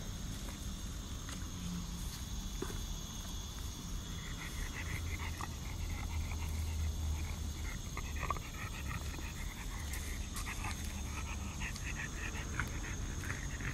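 A dog eating grass: quick, crackly chewing and tearing of grass starts about four seconds in and keeps on almost to the end.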